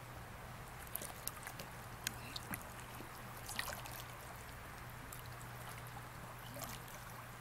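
Gentle river water trickling and splashing around a kayak and a person wading beside it, with a few light splashes or knocks in the first few seconds, over a faint steady low hum.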